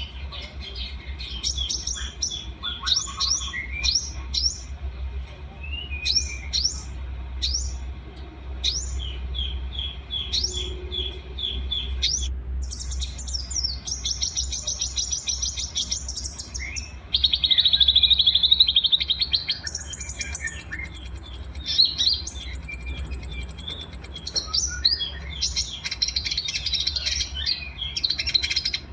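A mix of small songbirds chirping and trilling in quick, varied phrases, with a loud, dense trill about two-thirds of the way through. A steady low hum runs underneath.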